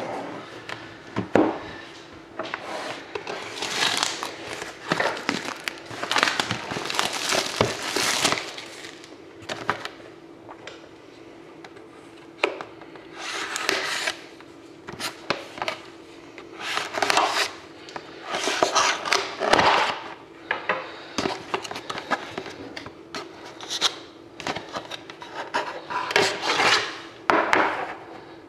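Plastic shrink wrap being slit with a blade and pulled off a cardboard card box, crinkling and rustling in irregular bursts, with cardboard and a metal tin handled between them.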